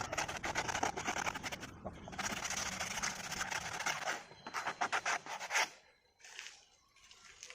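Sandpaper rubbed by hand over a glue-coated wooden fishing popper, with quick back-and-forth scratchy strokes that thin out and stop about three-quarters of the way through. The sanding smooths the rough, dried glue coating.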